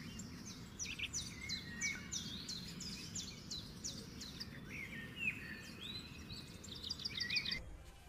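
Wild birds calling outdoors: a run of sharp falling chirps about two a second, then rising whistled notes and a quick trill of short notes near the end, over a steady low background hum. The sound cuts off suddenly near the end.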